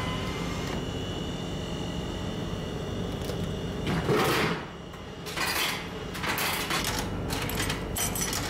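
Drink vending machine mechanisms over a steady hum: a loud clatter about four seconds in, then a run of shorter rattles and clicks.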